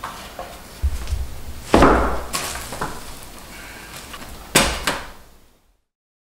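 Thin galvalume steel sheet being flattened on a wooden workbench: the sheet flexes and wobbles and knocks against the bench and a wooden batten, a handful of clattering knocks with a ringing tail, the loudest about two seconds in and again near the end. The curl it was sold with is being pressed out of it. The sound fades out about a second before the end.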